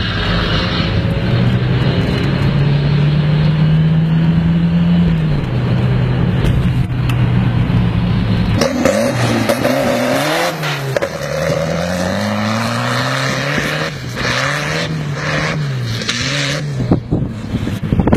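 Tractor engine running at high, steady revs, its pitch stepping up and later dropping back. About halfway through a different modified tractor engine takes over, revving up and down again and again.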